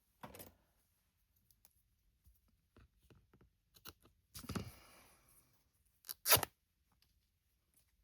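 Craft fabric being handled and arranged: a brief rustle, a few light ticks, a longer rustle about four and a half seconds in, and a short, sharp tearing sound a little after six seconds.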